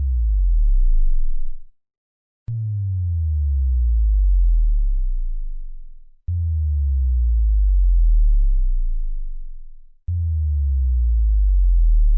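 Synthesized bass drop sound effects: deep tones that start sharply and slide down in pitch, swelling and then fading out over about four seconds. One is dying away at the start, and three more come in a few seconds apart.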